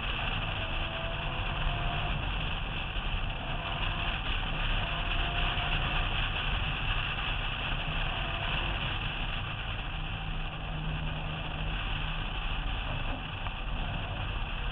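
Steady wind rush over a roof-mounted camera on a car at speed, with car engine and tyre noise underneath. A faint engine note rises near the start.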